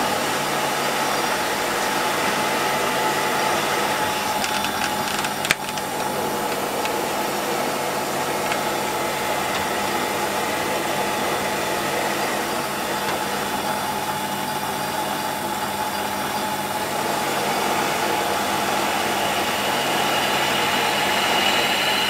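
Warco metal lathe running steadily while its tool cuts the end of a metal bar, a steady machine hum with one sharp click about five seconds in. A higher-pitched cutting whine comes in near the end.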